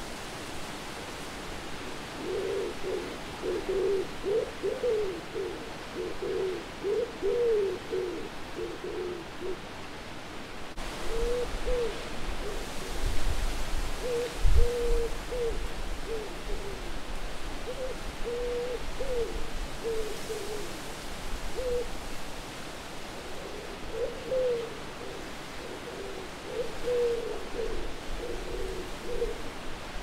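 An owl hooting in runs of short notes over a steady wind hiss, with a deeper rumble of wind swelling about halfway through.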